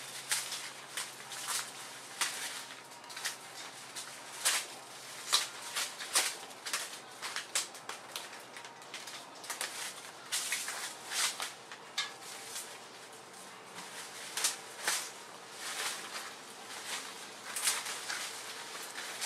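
Leaves and twigs rustling and crackling, with irregular sharp snaps one to three times a second, as cut brush is handled.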